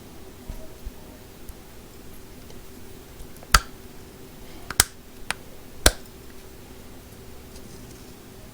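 Four sharp clicks within about two seconds, midway through: a Milwaukee Shockwave pivoting impact bit holder being snapped into its locked angle positions.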